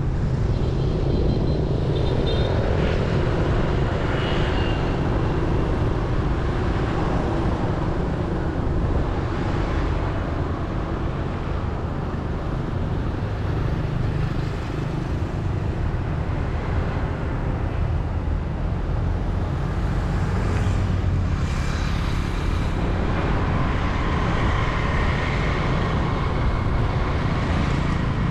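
Steady low rumble of wind and road noise heard from a vehicle moving along an open road, with other traffic around.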